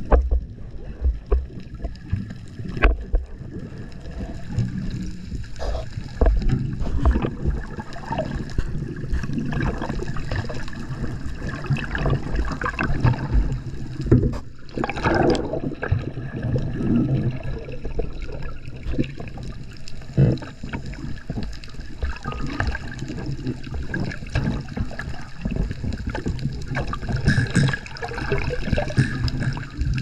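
Underwater sound of scuba diving: divers' exhaled bubbles gurgling in irregular surges, with scattered clicks and knocks and one louder rush of bubbles about halfway through.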